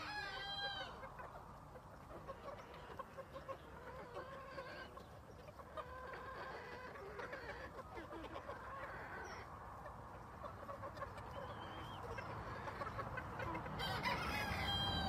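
A flock of brown leghorn chickens clucking and calling, many short overlapping calls throughout. Louder, higher calls come right at the start and again near the end.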